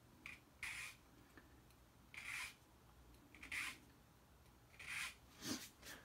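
Faint, short strokes of a small needle file rasping across a key blank, about five passes a second or so apart: filing down the impressioning marks to deepen the cuts of a wafer-lock key.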